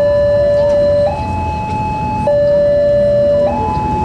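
Electronic warning alarm of a railway level crossing, alternating between a lower and a higher steady tone about every second and a bit, signalling that a train is approaching and the gate is closing.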